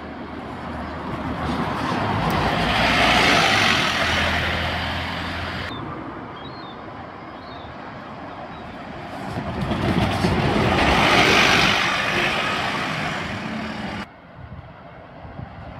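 Single-deck buses driving over a railway level crossing and past close by: two long swells of engine and tyre noise, the first peaking about three seconds in and the second around eleven seconds. Near the end it drops suddenly to quieter street traffic.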